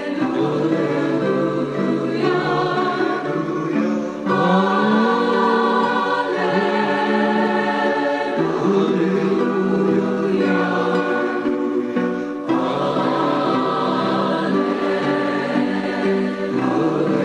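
Choral music: a choir singing held chords that change every few seconds.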